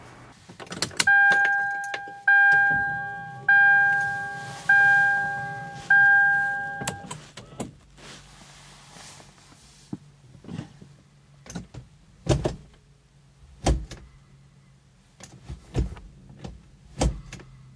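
A 1999 Toyota 4Runner's dashboard warning chime dinging five times, about one ding a second, with the ignition switched on and the engine not running. After it stops come several scattered dull knocks.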